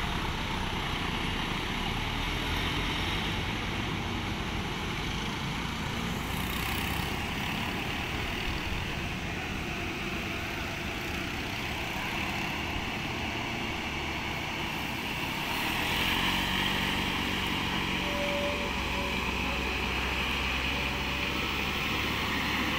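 Road traffic going round a hairpin bend: light diesel trucks and motorcycles passing, with steady engine and tyre noise. A truck engine's low hum grows louder about two-thirds of the way through.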